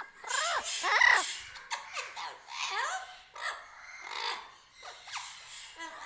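Cockatoo giving a series of short chattering calls that glide up and down in pitch, the loudest about a second in, with quieter gaps between.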